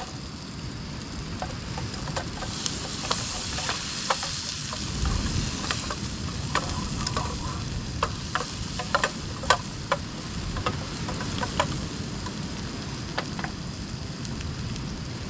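Oil sizzling in a pan with a steady hiss and irregular sharp pops and spits, densest in the middle stretch.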